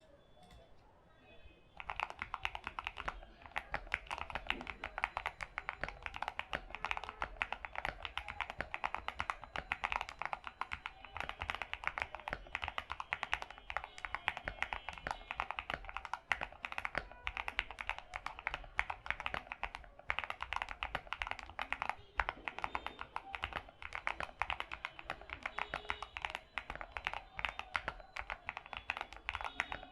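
Akko ACR67 mechanical keyboard with SA-profile keycaps being typed on: a fast, continuous run of keystroke clacks that starts about two seconds in.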